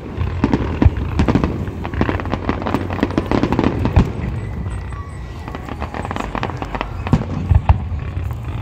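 Fireworks display: a rapid, continuous string of pops and crackles from bursting shells, with several louder bangs, the biggest about one and four seconds in and a close pair near the end.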